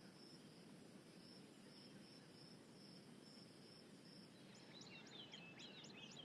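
Faint wild ambience: an insect chirping in an even, repeating pulse, joined about four and a half seconds in by quick, repeated bird chirps.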